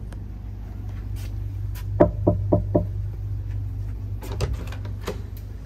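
Four quick knocks on a hotel room door about two seconds in, followed a couple of seconds later by a few lighter clicks, all over a steady low hum.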